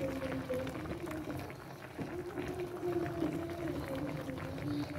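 Pan of tilapia simmering in vinegar sauce, with many small crackles and bubbles, under a louder slowly wavering held tone with a fainter higher one above it.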